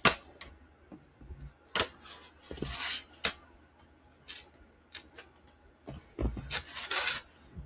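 Handling noise from a stylus pen and tablet computer: a few sharp taps and clicks with brief rubbing, scraping sounds in between.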